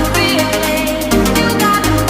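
Electronic background music with a heavy bass line, sustained synth notes and a steady beat.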